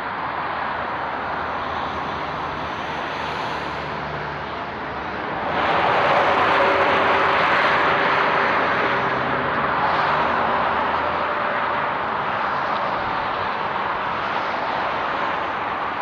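Road traffic passing below: steady tyre and engine rush, swelling louder about five seconds in as a car passes close, then easing off.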